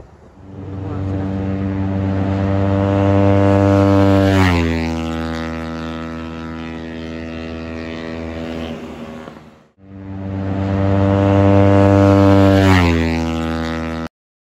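Yamaha 155 cc single-cylinder sport motorcycle speeding past at high revs, its engine note growing louder as it approaches and dropping in pitch as it goes by. The pass is heard twice, and the second one cuts off abruptly near the end.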